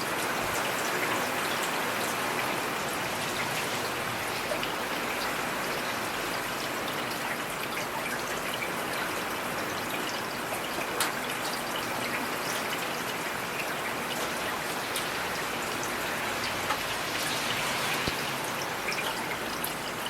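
Steady rain falling, an even hiss with scattered sharp drop impacts.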